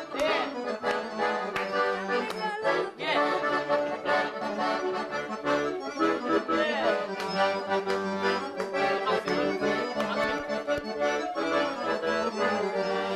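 Live band playing lively traditional-style party music: two accordions carry fast runs of notes, with an alto saxophone alongside.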